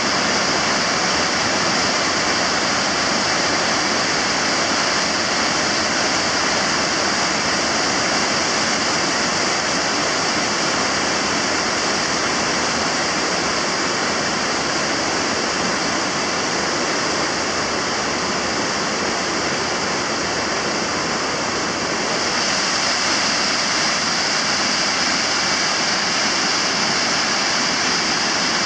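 A river in flood pouring over a weir and rushing down its ramp into churning white water: a loud, steady rush of fast, high floodwater.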